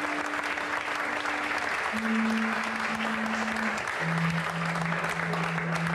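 Audience applauding, with three long held instrumental notes underneath, each one lower than the last.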